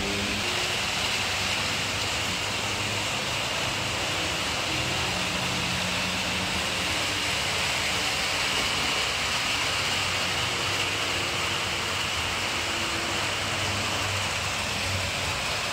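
Model railway trains running on the layout: a steady whirring hiss of small electric motors and wheels on the track, with a faint low hum underneath.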